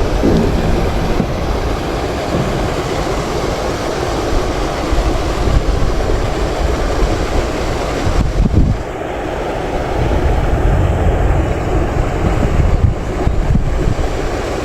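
Wind buffeting the microphone: a steady rough rumble with a short dip about nine seconds in.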